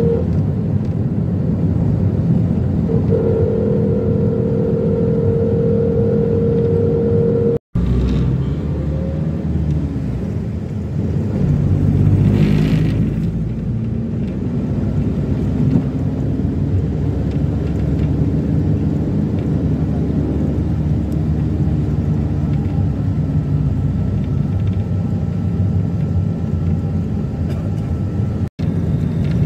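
Steady low road and engine rumble of a minivan driving along a highway, heard from inside the cabin, with a louder swell about twelve seconds in. The sound drops out for an instant twice, at edit cuts.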